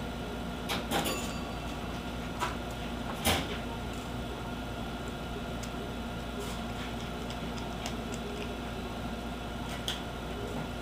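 Small screwdriver working screws out of a netbook's plastic screen assembly: a few light clicks and ticks of metal on screw and plastic, sharpest about three seconds in and once more near the end, over a steady background hum.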